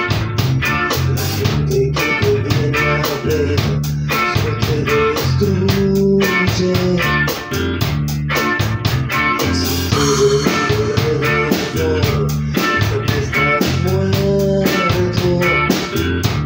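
Rock band playing live: two electric guitars, electric bass and drum kit, with a steady beat kept on the cymbals.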